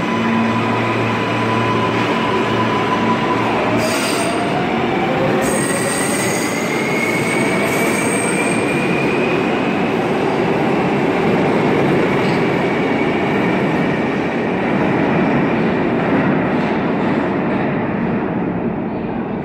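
New York City Subway (L) train pulling out of an underground station: the traction motors whine in tones that rise as it gathers speed, over the steady running noise of wheels on rails. The sound thins and fades near the end as the train leaves.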